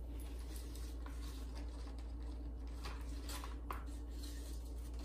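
Quiet room tone: a steady low electrical hum with a few faint clicks and rustles.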